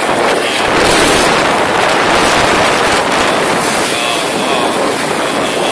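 Storm wind and heavy rain: a loud, steady rushing noise that swells about a second in and stays strong.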